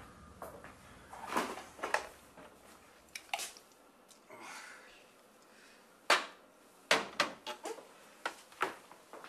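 Kitchen handling sounds: short, sharp clinks and knocks of a glass and jars being handled at an open refrigerator. The loudest knock comes about six seconds in, followed by a quick cluster of smaller ones about a second later.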